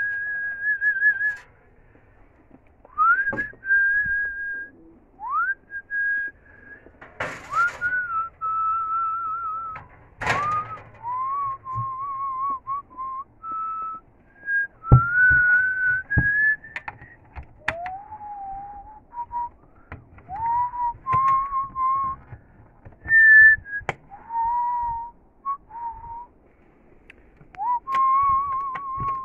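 A person whistling a slow tune: held notes with a slight waver, several sliding up into the note. A few sharp knocks and two short rustling bursts fall between the notes.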